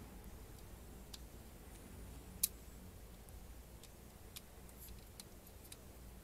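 Small clicks and taps of LEGO Technic plastic parts being handled as rubber bands are fitted onto the beams, with one sharper click about two and a half seconds in and a few lighter ticks near the end.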